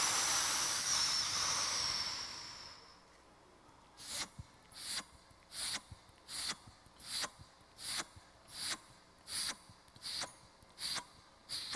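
A woman's breathing close on a headset microphone. A long hissing breath fades out over the first three seconds, and from about four seconds in come about eleven short, sharp puffs of air, one roughly every 0.7 seconds, while she holds her nose.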